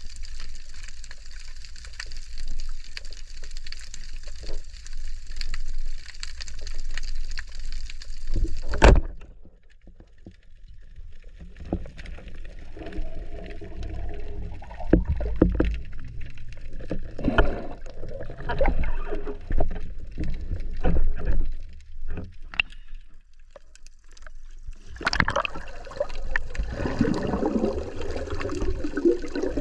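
Sea water sloshing and gurgling around a spearfisher, with a steady hiss at first and one sharp knock about nine seconds in. After the knock the sound turns dull and low, with irregular gurgles and splashes.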